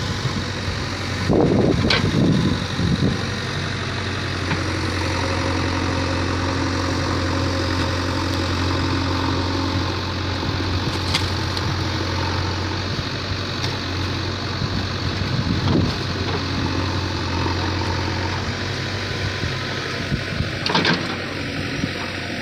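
Diesel engine of a tractor or backhoe loader running steadily at idle, with a few short louder noises over it, the loudest about a second and a half in.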